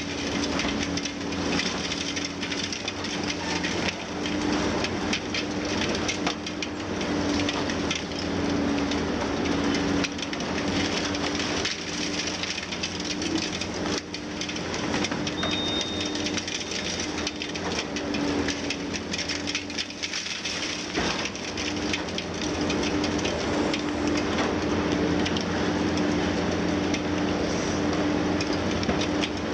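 Concrete being crushed by a Liebherr 954 high-reach demolition excavator, rubble crumbling and falling in a continuous crackle of small impacts, over the steady hum of the machine's six-cylinder diesel and hydraulics.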